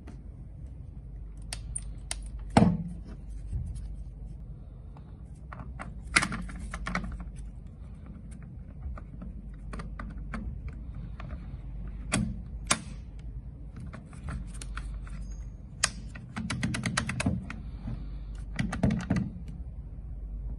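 Irregular clicks, knocks and rattles of a plastic dust shroud being fitted onto an angle grinder's gear head and the tool handled on a wooden table, with one loud knock about two and a half seconds in, over a low steady hum.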